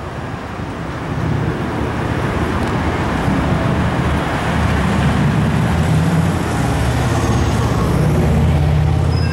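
Street traffic: cars passing with a steady road noise and a low engine rumble that swells about a second in and is loudest near the end.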